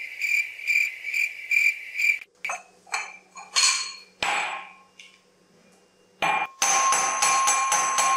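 Cricket chirping, about four chirps a second, stops after about two seconds. A few clinks and knocks follow, then from about six seconds a fast, ringing pounding of a metal pestle in a metal mortar.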